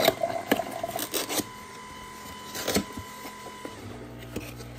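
Cardboard product box being handled and its top flap pulled open: several sharp taps and scuffs of cardboard, clustered in the first second and a half and again near three seconds in.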